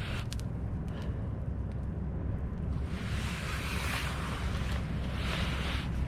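Wood campfire burning, with a few sharp crackling pops in the first second and a steady low rumble of wind on the microphone. Twice in the second half a rushing hiss swells up and dies away.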